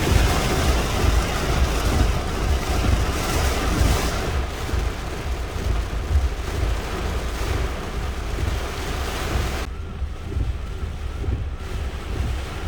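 Storm wind buffeting the microphone with heavy rain, a loud steady rushing with deep low rumbles. The hiss thins out sharply about ten seconds in.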